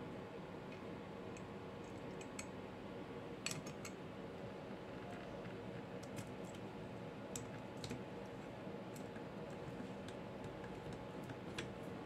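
Faint, scattered small clicks and taps of a screw, flat washer and split lock washer being handled and fitted against an aluminium antenna bracket, a handful of them with the sharpest about three and a half seconds in, over a steady low room hum.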